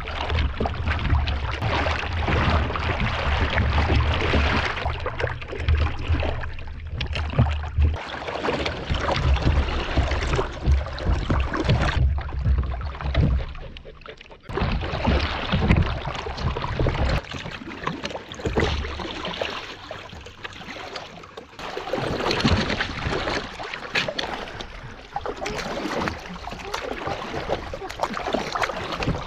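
Water sloshing and splashing against a paddleboard at the waterline as dogs paw and dip into it, with wind rumbling on the microphone during the first part.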